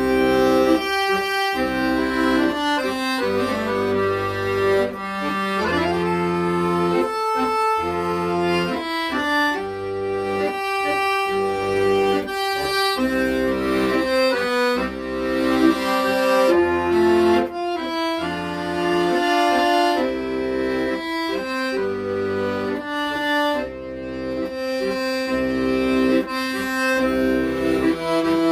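Accordion playing a song melody over held chords and a regular bass line.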